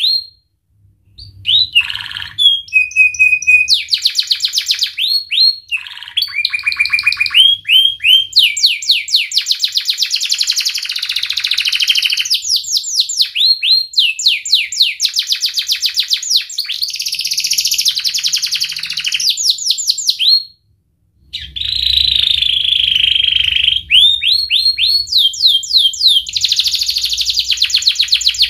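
Domestic canary singing a long song of rapid trills and fast repeated notes, broken by a short pause near the start and another about two-thirds of the way through.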